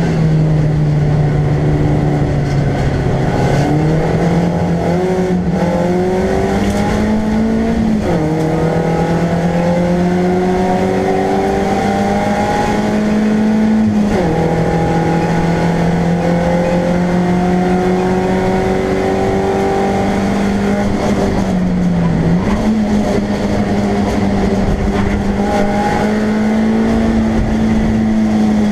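BMW Compact race car's engine heard from inside the stripped cabin, running hard under load. Its pitch climbs slowly, then drops sharply and recovers about eight, fourteen and twenty-two seconds in.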